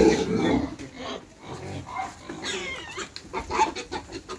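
Pigs grunting and chewing as they are hand-fed ice cream cones, with short crunching clicks and a brief higher-pitched call about two and a half seconds in.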